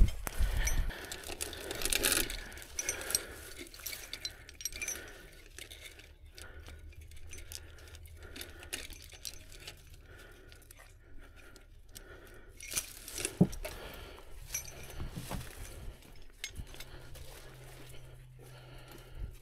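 Metal rigging hardware clinking and jingling with dry brush rustling, as recovery rigging is hooked around a wheel of a crashed car. There are scattered small clicks and a few sharper clinks.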